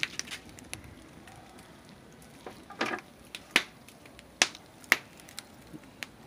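Wood fire burning in an open brick-and-rebar stove, crackling with a few sharp pops of the firewood, the loudest in the second half, and a duller knock about three seconds in.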